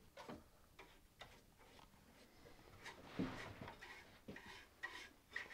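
Faint, scattered clicks and taps of hands working on a mitre saw, with a short scratchy rustle and a louder knock about three seconds in.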